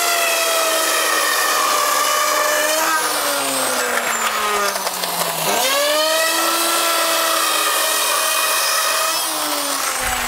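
Hand-held electric router running at full speed, cutting a pipe channel in XPS foam insulation board. About three seconds in it is switched off and winds down with a falling whine. It starts up again with a quick rise in pitch about five and a half seconds in, and near the end it winds down again.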